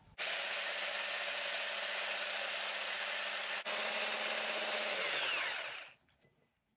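Electric immersion blender with a wire whisk attachment running at a steady speed, whipping heavy cream in a plastic beaker. Near the end its motor winds down, falling in pitch, and stops.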